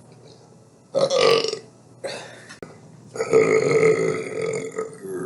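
A person belching loudly: a short burp about a second in, a briefer one at about two seconds, then a long drawn-out belch from about three seconds whose pitch sinks as it goes.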